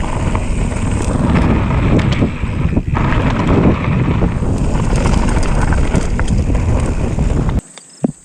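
Wind buffeting the microphone over the rumble and rattle of a mountain bike rolling along a dirt trail. The noise cuts off abruptly near the end, leaving a much quieter background with a few short sounds.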